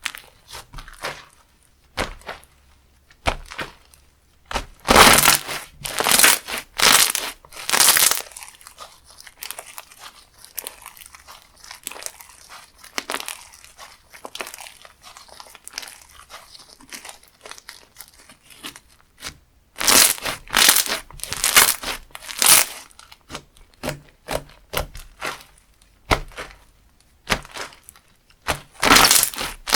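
Slime being pressed, squished and stretched by hand, giving bursts of crackling and crunching. The loudest clusters come about five seconds in, about twenty seconds in and near the end, with softer fiddling sounds between.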